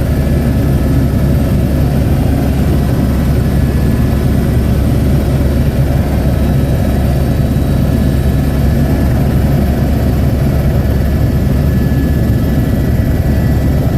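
Helicopter in flight: loud, steady engine and rotor noise, a continuous low rumble with a few faint steady tones above it.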